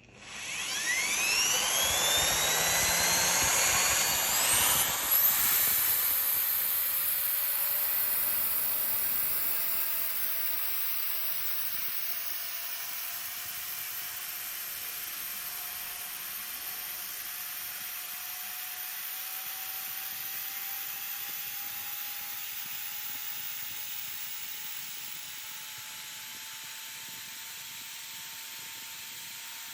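Electric drill spinning a rod pressed against metal for friction welding: a loud grinding whine that climbs in pitch over the first five seconds, then a quieter, steady whine that slowly rises.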